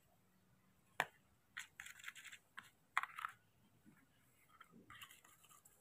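A spoon scraping and clicking against a small plastic bowl while food is scooped out: a few short scrapes, with sharp clicks about a second in and again about three seconds in.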